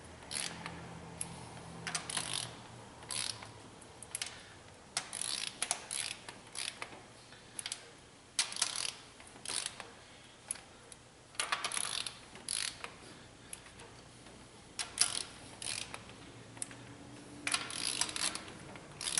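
Hand ratchet clicking in short, irregular bursts as cylinder head bolts are snugged down, with brief pauses between strokes and bolts. This is the snug-up pass before the bolts are torqued.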